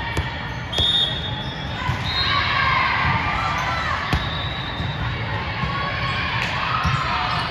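Gym noise from an indoor ball game: a few sharp thuds of the ball being hit or bounced against steady hall noise, with players and spectators shouting and calling out.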